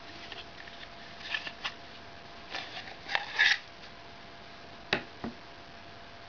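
Clicks and scrapes of a plastic knife sheath being handled as the Mora Bushcraft Survival knife is drawn from it, loudest about three and a half seconds in, followed by two sharp knocks about a second later.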